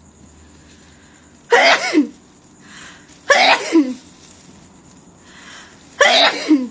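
A person in a sneezing fit brought on by a nasal sinus treatment: three loud sneezes about two seconds apart, each a sudden burst ending in a falling voiced tail, with short breaths drawn in between.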